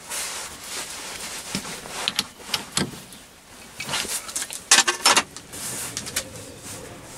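Sharp metallic clicks and knocks of tooling being handled and set up at a stopped metal lathe, with a cluster of the loudest about five seconds in.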